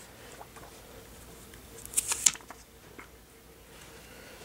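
Plastic tape and protective film being peeled and handled on a new iPhone 4, with a brief scratchy crinkle about two seconds in and faint handling noise around it.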